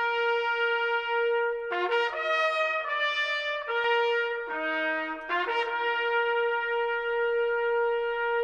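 Slow brass music led by a trumpet: long sustained notes, one held throughout while the notes above and below it change every second or so.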